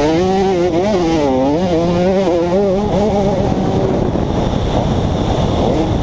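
2011 KTM 150 XC single-cylinder two-stroke dirt bike engine under way, its pitch rising and falling repeatedly as the throttle is worked; about three and a half seconds in, the engine note gives way to a steady rushing noise.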